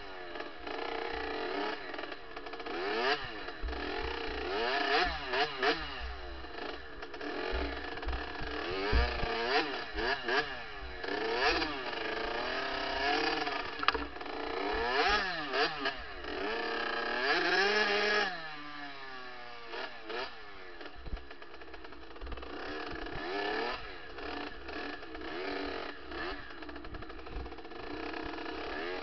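Kawasaki KX65 single-cylinder two-stroke engine under hard riding, revving up and dropping back again and again as the rider works the throttle and gears. About 18 s in it holds a high note, then drops to a lower, quieter run.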